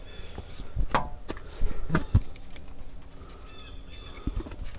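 Crickets chirring steadily in the background, with a few scattered light knocks and clicks as a hand works among the wiring and parts in a tractor's engine bay.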